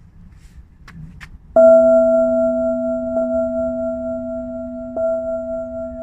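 A singing bowl struck once about a second and a half in, ringing with a low tone and two higher overtones that fade slowly. A light tap a few seconds later briefly lifts the ring. Before the strike there is only faint outdoor ambience with a couple of small clicks.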